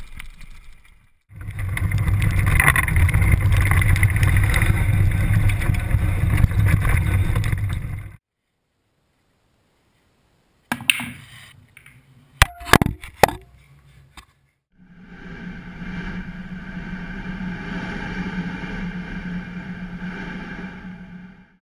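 A loud, steady rushing noise for about seven seconds, then silence. Then a pool cue strikes the cue ball and billiard balls knock together in a few sharp clacks, followed by a quieter steady hum with a low tone.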